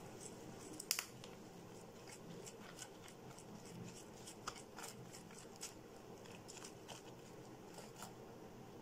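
Faint scraping and clicking of a spoon stirring crushed Oreo biscuits into cake batter in a steel bowl, with a sharper click against the bowl about a second in.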